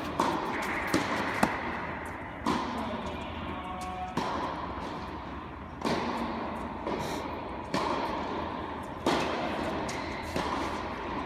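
Tennis rally: ball struck by rackets and bouncing on the court, a sharp pop about every one and a half to two seconds, each ringing with echo in the large indoor hall.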